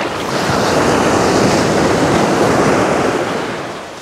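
Ocean surf breaking and washing up the beach, a steady rush that eases off near the end.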